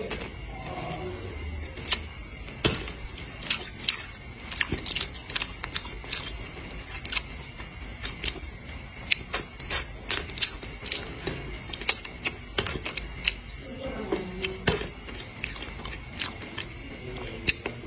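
A person chewing crisp stir-fried vegetables: irregular sharp crunches and mouth clicks, several a second at times.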